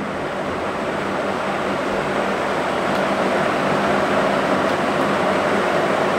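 Steady rushing noise with a faint low hum, slowly growing a little louder; no distinct knocks or scrapes stand out.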